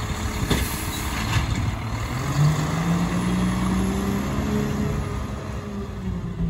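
Automated side-loader garbage truck's diesel engine pulling away, its pitch rising as it accelerates and then easing back. A few clanks come in the first second or so.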